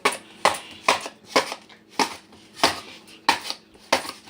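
A series of sharp knocks, about two a second and slightly irregular, as a package is struck repeatedly to force it open.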